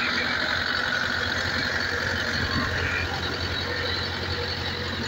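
YTO EF604 tractor's diesel engine running steadily at about 1,400–1,500 rpm, driving a thresher through its power take-off, with the threshing machine running along.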